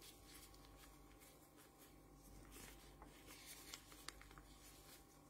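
Near silence with the faint rustle of plastic-gloved hands rolling a spring roll in its wrapper, a few soft clicks in the second half, over a faint steady hum.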